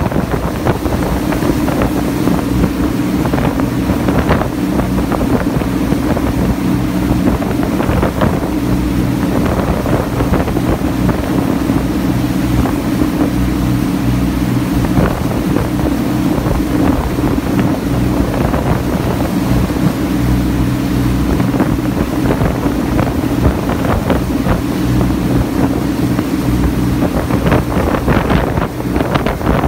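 Engine of the small passenger ferry Funauki-maru running steadily under way, with wind gusting on the microphone.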